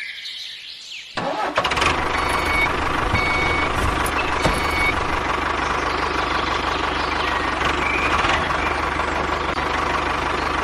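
Tractor engine starting about a second in, then running steadily.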